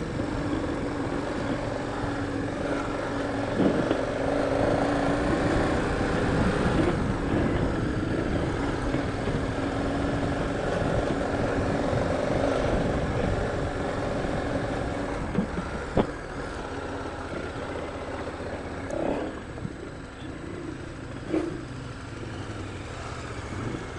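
KTM adventure motorcycle engine running steadily under load up a dirt climb, with road and wind noise. The engine eases off and gets quieter for the last several seconds as the bike slows, with a single sharp click partway through.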